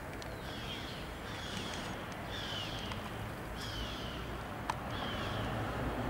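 Gulls calling: a short, falling call repeated about once a second, five times, over a steady low background hum. A single sharp click comes near the end.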